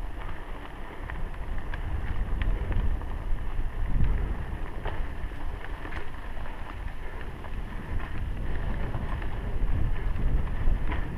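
Mountain bike rolling along dirt singletrack, with low wind buffeting on the helmet-mounted action camera's microphone, tyre rumble, and scattered clicks and rattles from the bike.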